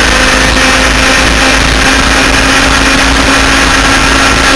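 Twin 100cc two-stroke engines of an enduro laydown race kart running at high speed down a straight, heard from an onboard camera with heavy wind rush over the microphone. The sound holds steady, with no shifts or lifts.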